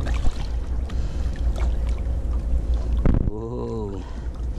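Water splashing and sloshing against the side of a boat as two cachara catfish are released by hand, over a steady low wind rumble on the microphone. About three seconds in, a man's voice gives one short held, wavering sound.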